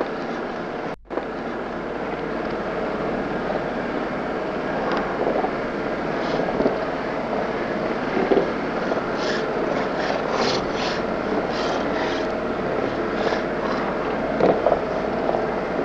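Land Rover engine running steadily, heard from inside the cab on a rough descent, with short knocks and rattles coming thick from about nine seconds in. The sound drops out for an instant about a second in.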